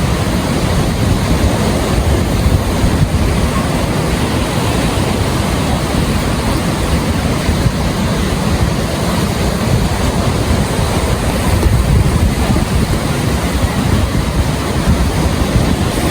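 Ocean surf washing onto a beach, with wind buffeting the microphone into a steady low rumble.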